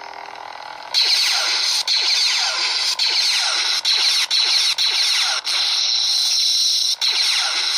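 Crystal Focus V5 lightsaber sound board playing its blade sound through the hilt speaker: a loud buzzing hum full of sweeping swing sounds, starting about a second in and cutting out briefly several times.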